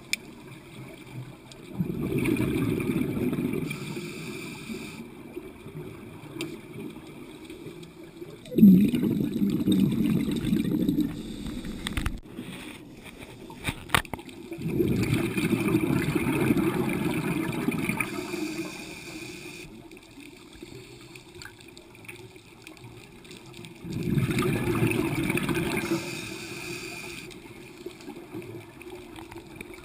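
Scuba breathing underwater through a regulator: four long bursts of gurgling exhaust bubbles several seconds apart, in the rhythm of slow breaths, with quieter stretches between. Two sharp clicks come in the middle.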